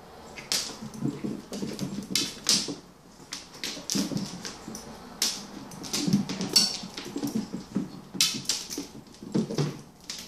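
A cat scrabbling and pouncing on a bare hardwood floor: an irregular clatter of sharp claw clicks and soft paw thumps that comes in quick flurries.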